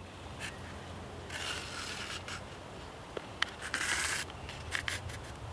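Spruce root cord scraping and rubbing as it is handled: the root is pulled apart along its grain into two strands and worked into the holes of a birch bark container. There are two longer rasps in the middle and a few light ticks.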